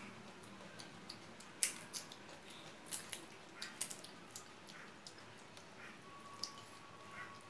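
Eating sounds of someone chewing rice eaten by hand: a scatter of sharp mouth clicks and smacks, most of them in the first half, with soft squishing of fingers mixing rice on a plate.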